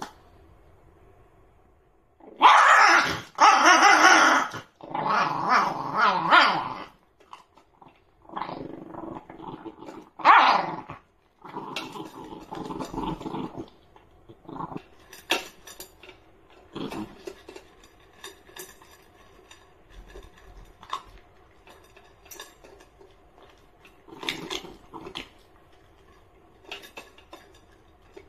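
Shiba Inu puppy growling over its food bowl, the sign of food guarding: several loud growls, each a second or two long, in the first half. After that come short clicks and crunches of kibble in a steel bowl as it keeps eating.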